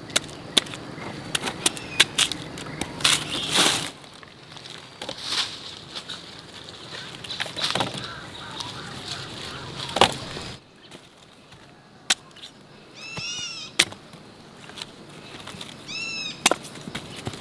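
Irregular knocks and clicks, with two short high animal calls near the end, each rising and then falling.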